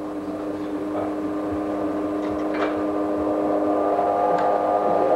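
A steady hum of several held tones, slowly growing louder, with a few faint clicks.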